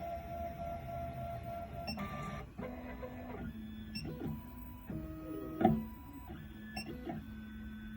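Miracle A9 key cutting machine's stepper motors driving its probe through a calibration measurement: a motor whine that holds steady, then jumps to a new pitch each time the carriage starts, stops or reverses, with small clicks between moves. A loud click comes a little past halfway.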